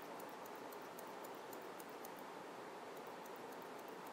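Hairdressing scissors snipping into hair in light, quick snips, about three or four a second, over a steady faint hiss.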